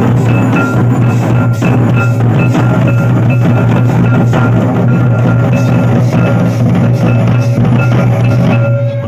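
Santal barrel drums (tumdak') played together in a dense, loud dance rhythm, with many overlapping hand strokes.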